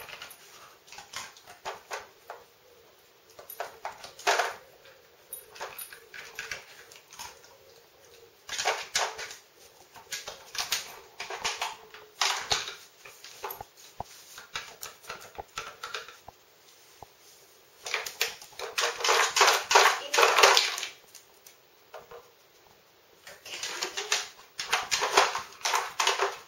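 A dog paws and noses at a hard plastic Nina Ottosson Dog Casino treat puzzle, its pegs and pull-out drawers clattering and knocking in irregular bursts. The longest, loudest run of clatter comes about three-quarters of the way in.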